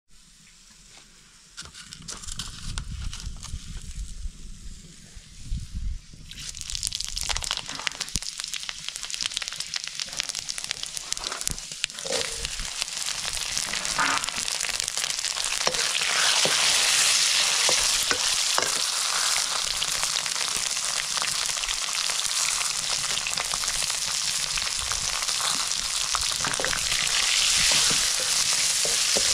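Pieces of buffalo meat sizzling as they fry in oil in a metal wok. The sizzle begins abruptly about six seconds in and grows louder, with scattered clinks of a metal ladle stirring against the pan.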